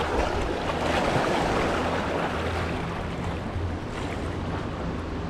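Steady rushing noise of moving water and wind buffeting the microphone.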